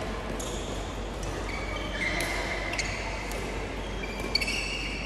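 Badminton rackets striking a shuttlecock during a doubles rally: a few sharp, separate hits, with shoes squeaking briefly on the court floor, most plainly around the middle and again near the end.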